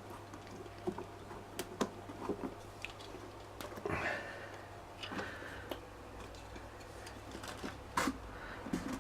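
Hands working a motorcycle inner tube and tyre onto the wheel rim: rubber rustling and squishing with scattered light clicks and knocks.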